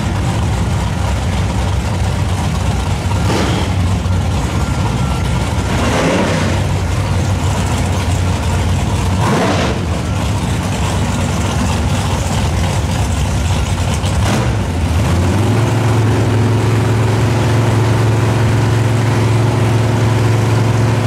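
Drag cars' engines, a black Camaro and a blue Nova, idling on the starting line with several short throttle blips. About three quarters of the way through, an engine is brought up to a steady, higher held rev, louder than the idle.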